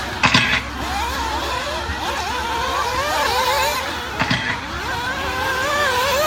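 Several nitro RC buggies' small two-stroke glow engines racing, their high whine rising and falling as they accelerate and back off. Two short, louder bursts stand out, one just after the start and one about four seconds in.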